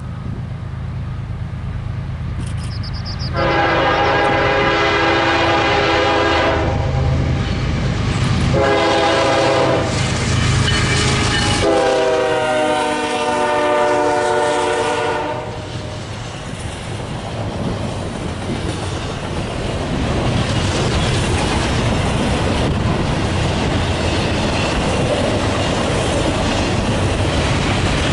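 Freight train's diesel locomotive air horn blowing three blasts, long, short, then long, over a low engine rumble; the last blast falls in pitch as the locomotive passes. The freight cars then roll by with a steady wheel clatter.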